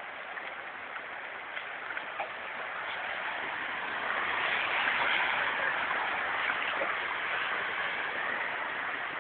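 Rushing, splashing floodwater noise that swells about four seconds in and then slowly eases off.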